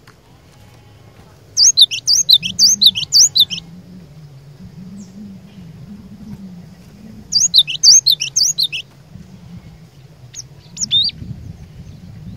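Cinereous tit (glatik batu) singing in two loud runs of rapid, sharply swooping high chirps, the first about 2 s long and the second shorter, followed by two short notes near the end.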